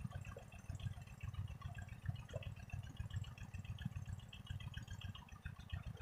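Faint water sloshing and dripping as a man dives under in a pond, over a low, fluttering rumble.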